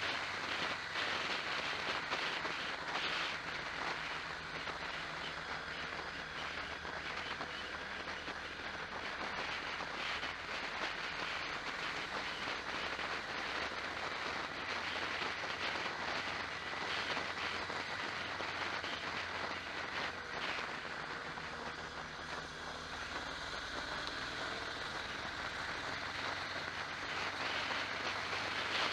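Onboard noise of a vehicle driving at speed: a steady rush of wind and road noise with a low engine drone underneath.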